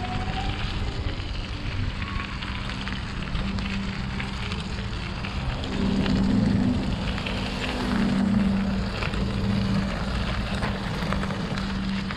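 Wind and road noise on a chest-mounted action camera during a bicycle ride, with a steady low hum underneath that swells briefly about six and eight seconds in.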